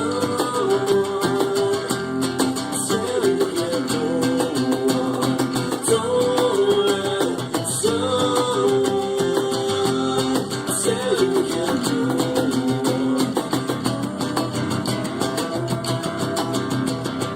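Acoustic guitars playing an instrumental passage of a rock song live, with a melody line gliding between held notes over plucked chords.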